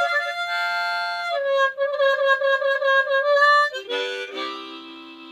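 Harmonica playing a short instrumental phrase of held notes and chords. Near the end it steps down to lower notes and gets quieter.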